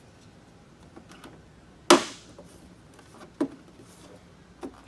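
Plastic push-pin clips snapping into place as an engine-bay cover is fastened down: one sharp click about two seconds in, then two fainter clicks.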